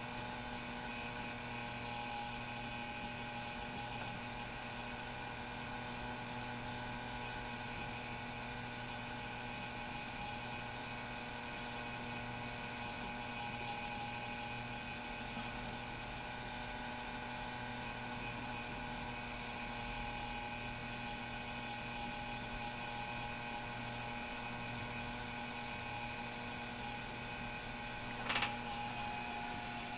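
Model chairlift's small electric drive running steadily with a whirring hum as the chairs travel along the cable; a short click near the end.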